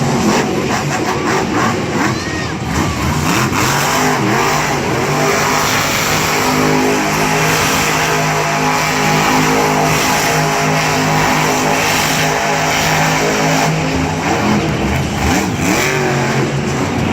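Gas Monkey Garage monster truck's engine revving up and down during a freestyle run, then holding a steady note through the middle, with more revving near the end.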